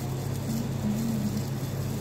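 Steady low hum of café machinery, with faint wavering tones above it.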